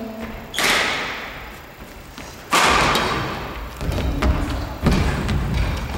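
Badminton rally: two sharp racket-on-shuttlecock smacks about two seconds apart, each echoing in a large gymnasium, followed by a run of dull thuds of players' footsteps on the wooden court floor.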